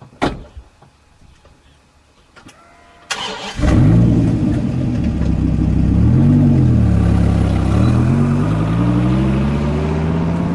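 Dodge Viper's V10 engine starting about three seconds in, then running steadily. It gives a brief rev a few seconds later, then rises steadily in pitch as the car pulls away.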